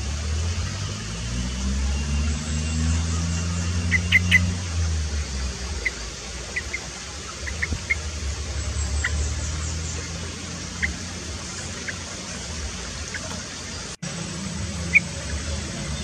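A low engine-like rumble, loudest in the first five seconds, with a dozen short sharp high chirps or ticks scattered over it. The sound cuts out for an instant near the end.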